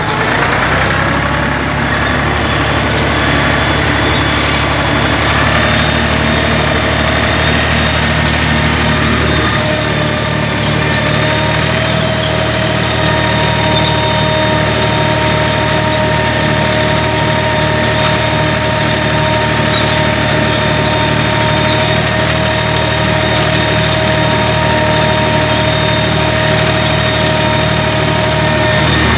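Farm tractor engine running steadily under load while pulling a cultivator and seed drill, heard from the driver's seat, with a steady high whine over it. A faint squeak repeats about once a second.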